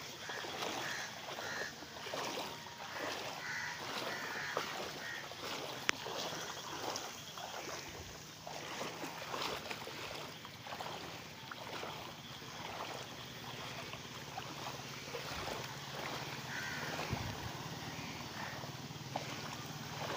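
Footsteps wading through shallow floodwater, a splash or slosh with each step in an even walking rhythm. A few bird calls sound faintly, twice near the start and once near the end.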